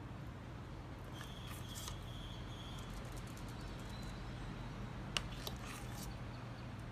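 Quiet scraping and tapping of a metal spoon as cookie dough is scooped from a steel pot and dropped onto a foil-lined tray, with one sharp click of the spoon a little after five seconds in. A faint steady low hum runs underneath.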